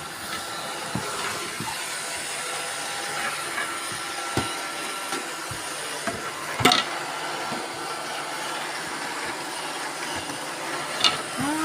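Several robot vacuum cleaners running together, a steady whirring hiss with a faint steady whine. A few sharp knocks sound through it, the loudest about two-thirds of the way in.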